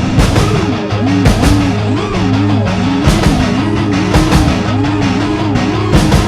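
Heavy rock music with distorted guitar and a driving drum beat.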